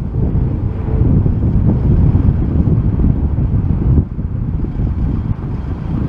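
Strong gusty wind buffeting the microphone: a loud, uneven low rumble that eases briefly about four seconds in. The jet engines of a Boeing 787-9 on short final are mixed in beneath it.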